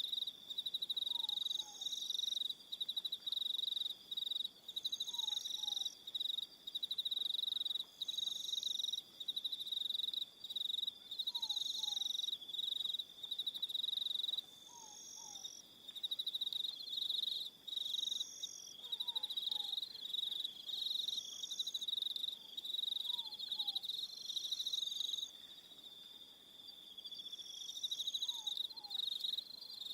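Crickets chirping in an evening chorus: a high-pitched trill that comes in stretches of one to several seconds with short breaks. Beneath it, a faint two-note call repeats every three to four seconds.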